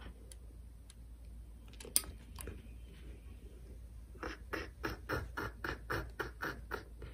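A cat chewing and biting at a small plastic toy: a quick run of short crunchy clicks, about four a second, in the second half, after a single sharp click about two seconds in.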